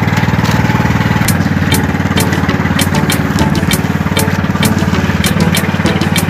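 Small fishing boat's engine running steadily at a constant speed, with a low, even drone. From about a second in, frequent short sharp clicks or slaps sound over it.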